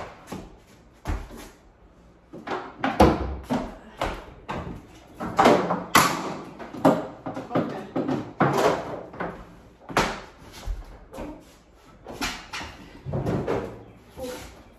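Repeated irregular knocks, thuds and scrapes of a microwave being shoved sideways into position against its wall mounting and the cabinet above it.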